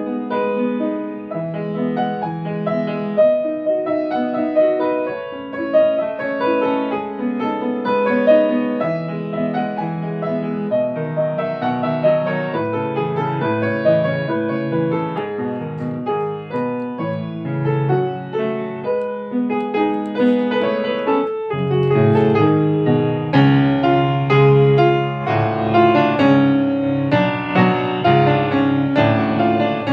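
Solo grand piano playing a composed piece with a continuous flow of notes. About 21 seconds in there is a short break, after which the playing grows fuller, with deeper bass notes under the melody.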